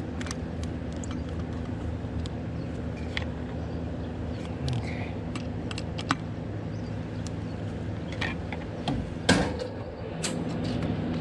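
Scattered light clicks and taps of hands and tools working security-camera mounting hardware, over a steady low mechanical hum. A sharper knock comes about nine seconds in.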